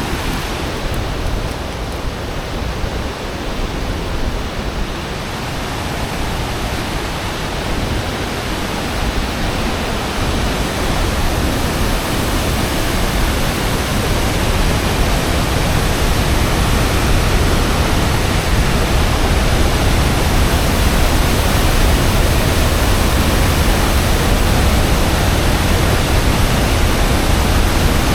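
Steady roar of falling water from a waterfall, growing somewhat louder over the second half.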